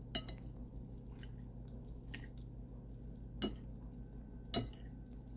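A utensil clinking against a dish about four times, the last two strikes loudest and ringing briefly, as an egg is worked onto a plate.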